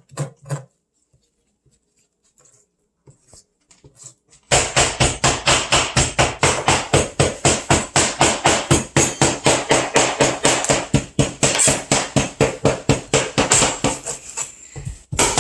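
Cleaver chopping raw chicken through the bone on a cutting board: a few strikes at the start, then, about four and a half seconds in, a long run of rapid, steady chops, several a second.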